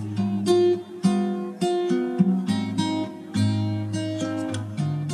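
Instrumental intro music: plucked guitar notes and chords over held bass notes.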